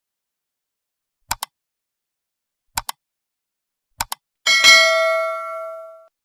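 Sound effect of three quick double mouse clicks followed by a bright bell ding that rings out for about a second and a half: the familiar like, subscribe and notification-bell click effect.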